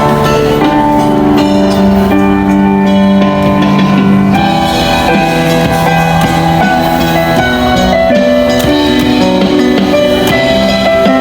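Background music: an instrumental track with sustained melodic notes over a light drum beat.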